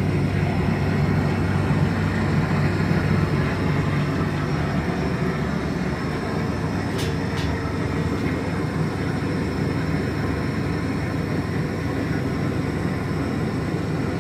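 A 20 kW off-grid generator system running steadily with a low hum while charging its battery bank at a little over 14 volts. Two faint clicks about seven seconds in.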